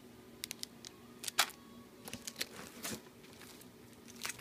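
Plastic packaging of craft supplies crinkling and crackling in short, irregular bursts as packets are handled, over a faint steady hum.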